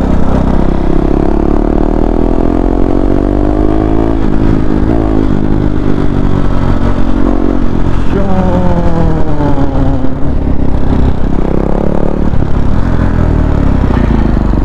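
KTM Duke 390's single-cylinder engine under way. Its pitch rises as the bike accelerates for the first few seconds, then falls again a little past halfway as it slows, with a short rise near the end.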